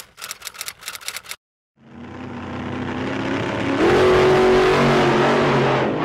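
Car-engine revving sound effect: a quick run of clicks, then after a brief gap an engine sound that builds steadily, gets louder about two seconds later and holds a steady whine on top.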